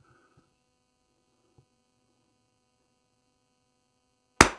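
A faint steady hum, then about four seconds in a single sharp shot from a Lithgow LA101 bolt-action .22 LR rifle firing Lapua Center X. It is the cold-bore first shot through a freshly cleaned barrel, clocked at about 912 fps and landing low.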